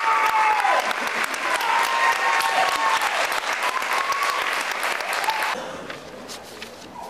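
Audience applauding, with cheering voices over the clapping. The applause drops off sharply about five and a half seconds in, leaving only faint sound.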